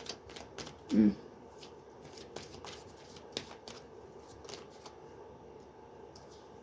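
Tarot cards being shuffled and handled: a string of light, irregular papery snaps and flicks.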